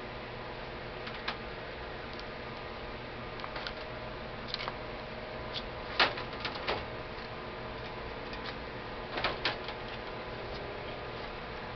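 Scattered short clicks and knocks of AK-47 parts and tools being handled during disassembly, the sharpest knock about six seconds in and a close pair a little after nine seconds, over a steady background hum.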